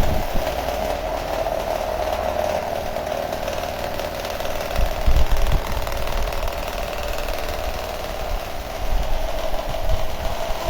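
Max Star 18-inch pedestal fan running: a steady whirr with a hum band, and its airflow buffeting the microphone with low rumbles and thumps, strongest about five seconds in.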